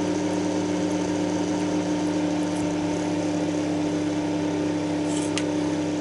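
Small 220–240 V mains axial cooling fan running with a steady electric hum, its ball bearing freshly oiled through the hub after it had been too dry to let the fan spin up. A faint click about five seconds in.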